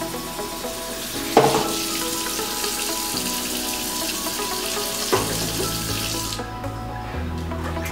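Kitchen faucet running water into a stainless steel sink as a grill pan is rinsed under the stream, with two knocks, one about a second and a half in and one about five seconds in. The water shuts off after about six seconds.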